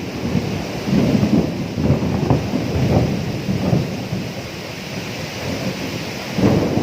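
Thunderstorm: rolling thunder rumbling in repeated low swells over the steady hiss of heavy rain, the rumble surging about a second in and again near the end.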